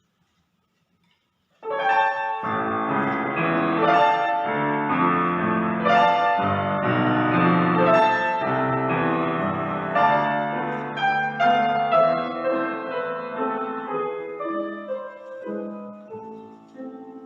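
Piano introduction: chords and melody starting about a second and a half in after a moment of silence, growing quieter toward the end.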